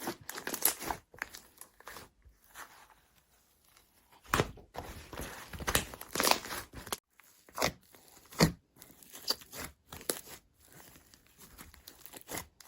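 Hands squeezing and pulling slime, which crackles and crunches in irregular bursts, with a few louder crackles about midway.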